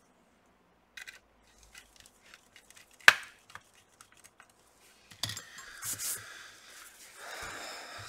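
Small clicks and taps of a precision screwdriver driving the last bottom-cover screws into a laptop, with one sharp click about three seconds in. From about five seconds, rustling and a couple of knocks as the laptop is handled and turned over on a fabric work mat.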